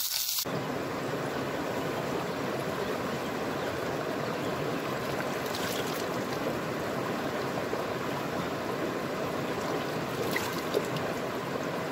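River water rushing steadily over stones, with a couple of faint splashes as hands scoop water up to a face.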